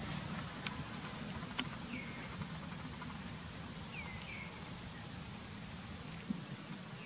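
Outdoor ambience: a steady background hiss with a few short chirps that fall in pitch, about two seconds in and twice around four seconds, and a couple of faint clicks early on.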